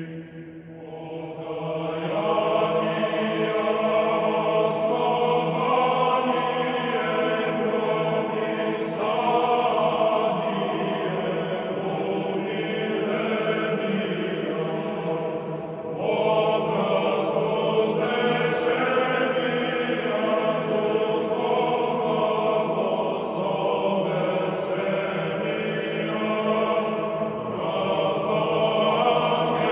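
Orthodox chant sung by a choir of voices holding long notes. It swells in over the first couple of seconds, with brief breaks between phrases about halfway through and again near the end.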